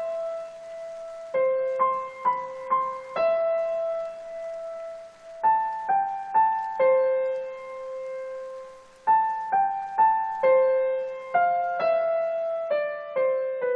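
Background music: a slow, gentle piano melody of single notes, each struck and left to ring and fade, some in quick runs of three or four and some held longer.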